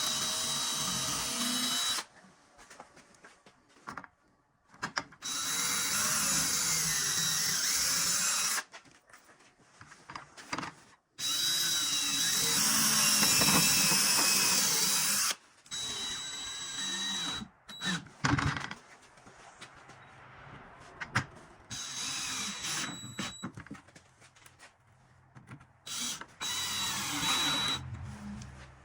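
Power drill running in bursts, pre-drilling pilot holes to screw a furniture dolly to the bottom of a cabinet. There are three long runs with a steady high whine in the first half, then shorter, quieter runs and clicks.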